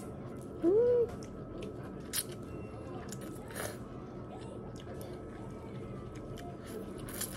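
A person eating, chewing with a few crisp, crunchy bites. About a second in comes a short rising 'mm' hum of a voice, the loudest sound here.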